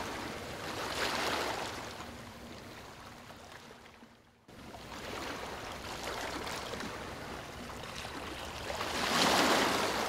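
Ocean waves washing in and receding. One wave surges about a second in and fades away, the sound cuts back in abruptly about halfway through, and another wave builds and breaks near the end.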